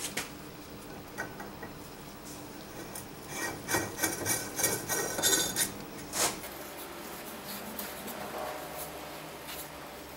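Metal parts of a hydraulic bottle jack clinking and scraping as the ribbed top nut is set onto the cylinder, with a cluster of quick clicks in the middle and a single knock about six seconds in.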